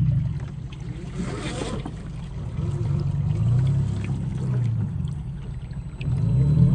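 A 1/10-scale RC crawler's brushed 550 electric motor and gear drivetrain whining, its pitch rising and falling with the throttle, quieter in the middle and picking up again near the end. A short rush of noise comes about a second and a half in.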